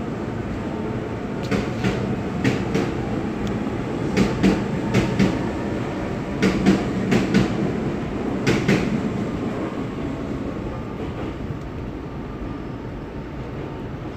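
Osaka Metro 66 series subway train with Mitsubishi GTO-VVVF traction equipment running on the line: steady rumble of wheels on rail, with the wheels clacking over rail joints in pairs through roughly the first nine seconds. The sound then eases off a little toward the end.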